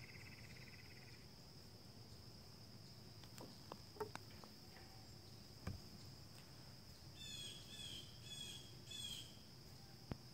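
Faint woodland ambience: insects drone steadily on one high note, with a bird calling four times in quick succession about seven to nine seconds in. A few faint clicks come in between.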